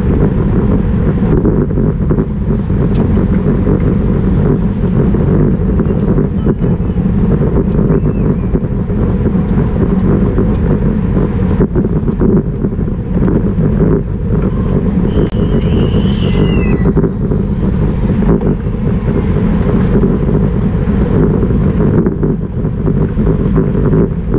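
Wind rushing over the microphone of a camera on a road bike racing at about 30 mph, a steady low rumble throughout. About two-thirds of the way through, a brief high-pitched squeal dips slightly in pitch.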